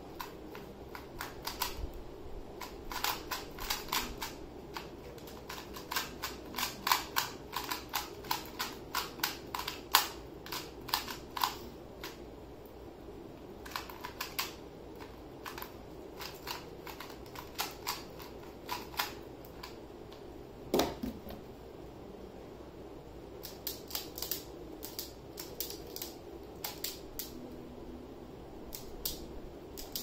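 Plastic speed-cube puzzle being turned by hand: quick runs of sharp clicking as the layers snap round. About two-thirds through the clicking stops for a couple of seconds, broken by a single knock, then resumes.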